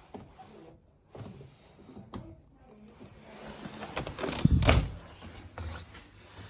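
Clunks and knocks of something being handled, with a cluster of sharp knocks and a low thud about four and a half seconds in.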